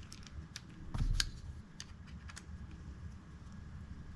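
A handful of light, sharp metal clicks and taps from small knife parts and tools being handled during reassembly of a folding pocket knife, with a dull thump about a second in; the last second and a half is quiet.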